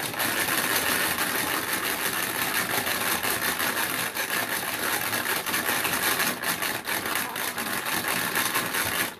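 Crayola Paint Maker's hand-cranked plastic shaker being turned fast, giving a steady, rapid plastic rattling and clicking as it shakes a paint bottle to mix in the color. It stops suddenly near the end.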